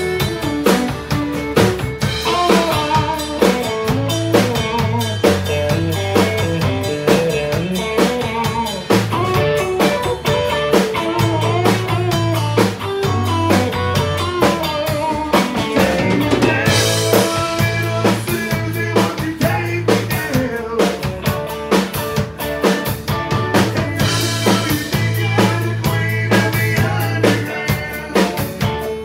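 Live country band playing with no words heard: fiddle and electric guitar over bass and a drum kit with a steady rimshot beat.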